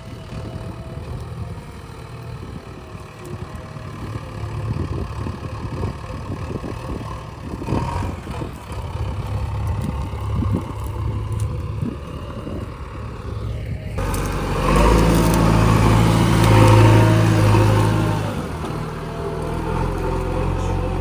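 Heavy diesel machinery engine running with a clattery low hum. About two-thirds of the way through, the sound cuts abruptly to a louder, steadier engine that swells and then eases off.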